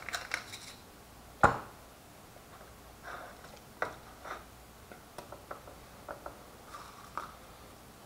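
Wooden pepper mill grinding with a fast run of clicks that stops within the first second. About a second and a half in the mill is set down on a wooden cutting board with a single sharp knock. After that come faint soft taps and rubs of fingers working the seasoning into raw fish fillets on a plate.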